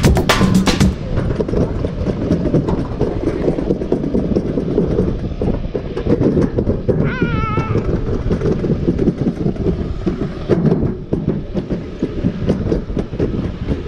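Toboggan sledge running down a stainless-steel trough: a continuous rumbling clatter of the sled on the metal channel. A brief wavering squeal about seven seconds in.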